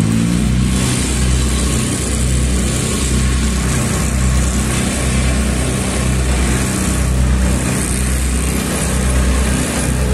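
Caterpillar vibratory roller's diesel engine running loud with the drum vibration switched on: a steady heavy drone with a regular throb, a few beats a second, that sets in at the very start.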